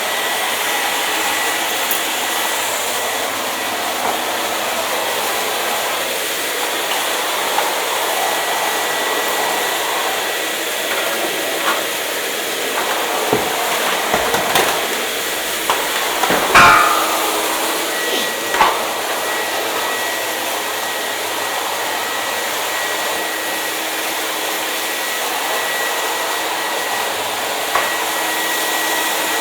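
Electric hair dryer running steadily, a continuous blowing hiss with a faint steady whine. A handful of short knocks and clicks come through in the middle, the loudest just past halfway.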